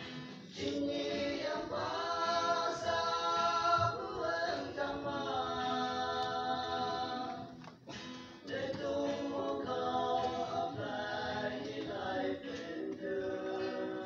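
A choir singing in sustained, held phrases, with a short break about eight seconds in before the next phrase.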